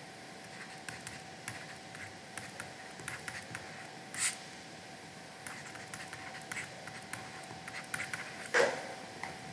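Stylus tapping and scratching on a drawing tablet as working is written out, in light irregular clicks, with a louder short scuff about four seconds in and another, the loudest, near the end. A faint steady hum runs underneath.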